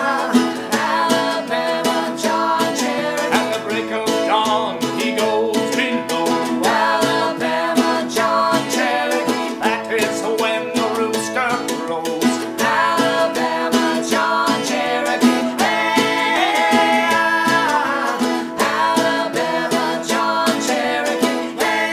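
Acoustic string band playing a folk song: banjo, mandolin and guitar picked and strummed together at a steady pace.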